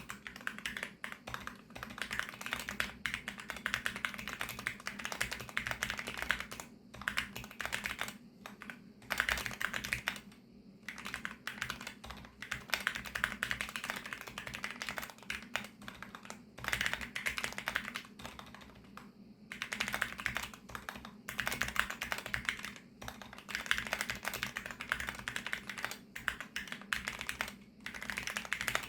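Typing on a VARO V68+ mechanical keyboard with factory-lubricated VARO Panda linear switches: rapid runs of keystrokes broken by short pauses every few seconds.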